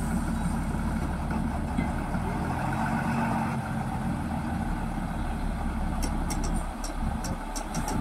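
Engine running steadily with a low hum. From about six seconds in, a run of sharp high clicks comes at about three or four a second.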